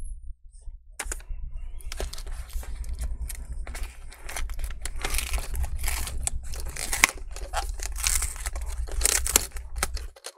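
Plastic screen bezel of a Dell Latitude 5490 laptop being peeled off its double-sided adhesive tape, the tape tearing away in a dense run of crackles and ticks. The sound starts about a second in, after a short quiet moment.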